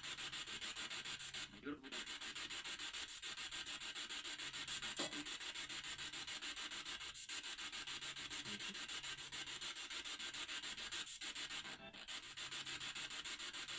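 A brief metallic knock about five seconds in, over a steady hiss of amplified background noise.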